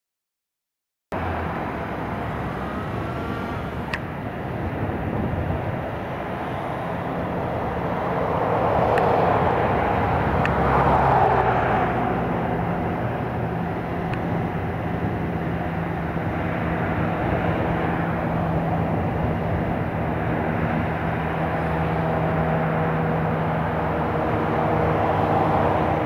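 Steady outdoor engine noise, starting about a second in, swelling around ten seconds in, with a steady motor hum through the second half.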